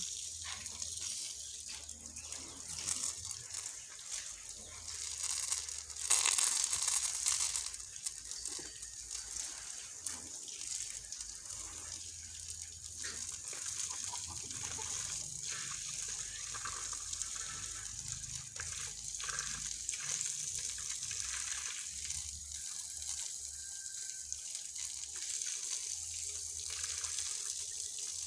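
Falling water splashing steadily, swelling louder for a couple of seconds about six seconds in.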